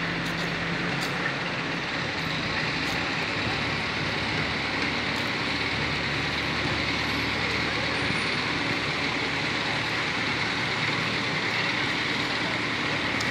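Diesel engine of a wheeled mobile crane running steadily with a low hum while the crane holds a lifted generator set.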